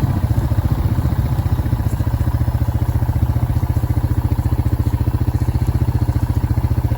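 An engine idling close by, with an even, rapid pulse and a steady level.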